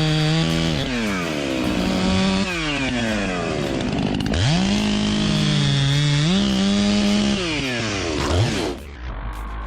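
Chainsaw engine running at high revs, falling off and picking back up twice as the throttle is eased and squeezed again, then cutting off suddenly near the end.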